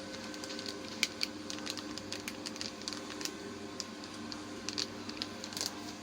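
Continuous band sealer running with a steady low hum, with irregular light clicks and taps of its parts being handled.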